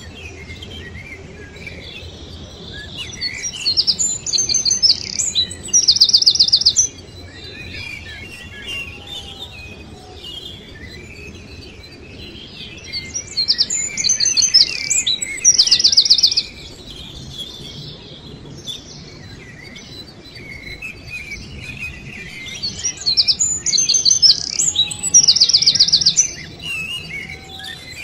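Birdsong: one bird's phrase of high chirps ending in a rapid trill, repeated three times about ten seconds apart, over fainter chirping of other birds.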